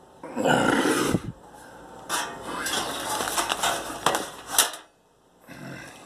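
Sheet-metal side cover of a Dell OptiPlex GX620 tower case being lifted off: a scrape of metal about half a second in, then a longer stretch of rattling and clicking as the cover is handled, stopping shortly before the end.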